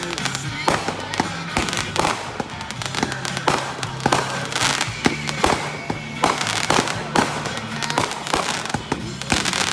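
Consumer aerial fireworks going off in a rapid, irregular string of bangs, about two to three a second.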